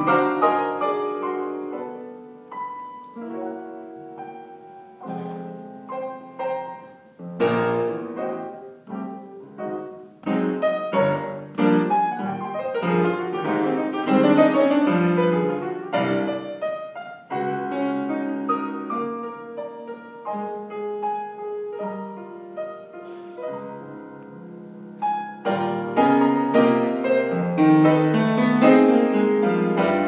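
Piano playing a tune, with fuller, louder passages in the middle and near the end and quieter stretches between.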